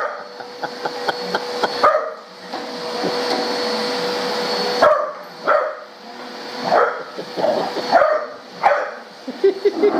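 Dog barking repeatedly at a running vacuum cleaner, whose steady motor hum carries on underneath. The barks come in short separate outbursts: a few at the start, a gap of about three seconds, then a quicker run of barks toward the end.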